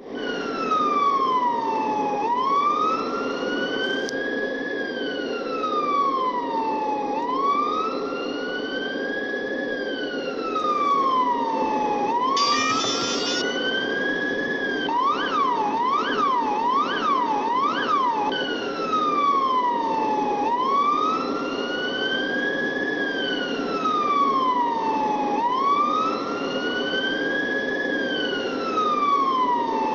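Police siren on a slow wail, its pitch rising and falling about every five seconds. About fifteen seconds in it switches for three seconds to a fast yelp of four quick up-and-down sweeps, then returns to the wail. About twelve seconds in there is a harsh one-second blast, and a steady low hum runs underneath.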